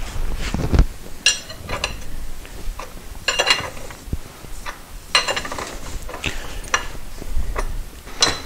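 Metal tools and parts being handled: a series of short, ringing metallic clinks and rattles, about seven over several seconds, with a dull thump near the start.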